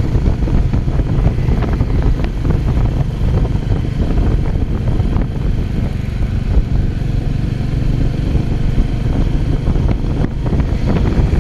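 Royal Enfield 350's single-cylinder engine running as the motorcycle is ridden, with heavy wind rumble on the microphone.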